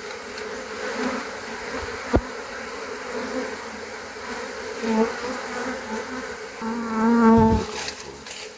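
Honeybees buzzing in a steady swarm around an opened Langstroth hive, stirred up and driven out of the boxes by smoke. A bee buzzes loudly close by for about a second near the end, and there is one sharp knock about two seconds in.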